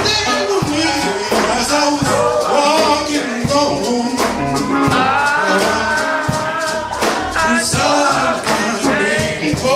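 Gospel music: singing over a band with a steady beat of percussion strokes.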